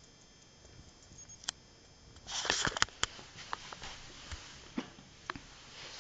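Handling noises: a burst of rustling with a few sharp clicks about two seconds in, then scattered light clicks and taps, as a hand picks up a small furry toy ball from a wooden floor.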